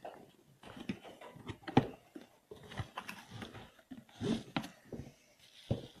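A cardboard box being opened and handled, with the plastic-wrapped headphones drawn out of it: irregular knocks, scrapes and rustles, the sharpest knock a little under two seconds in.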